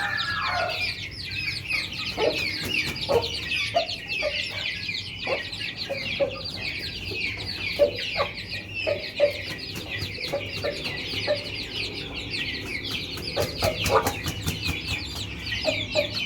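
A brood of newly hatched chicks peeping constantly in quick, high, downward-sliding cheeps, with an Aseel hen giving short low clucks every second or so.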